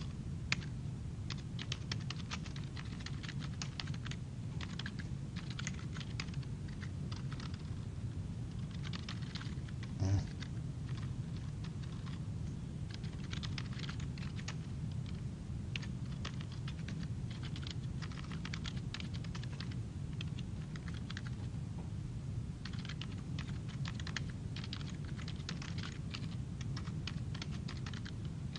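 Computer keyboard typing in bursts of rapid keystrokes, with short gaps between the bursts, over a steady low hum. There is one short, louder thump about ten seconds in.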